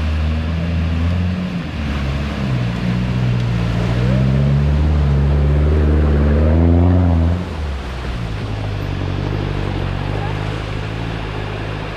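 A 4WD's engine pulling an off-road camper trailer through a flowing river crossing, over the rush of the water; its note climbs and grows loudest as it passes close, then cuts away sharply about seven seconds in to a quieter, steadier engine note as the rig climbs the track.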